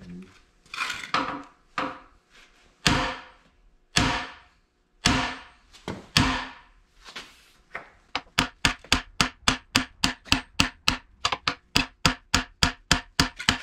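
Hammer blows on a bearing driver, driving a bearing in the bore of a CAT D4D engine block. The blows start slow and spaced, about one a second, then speed up to a steady rapid hammering of about three to four blows a second.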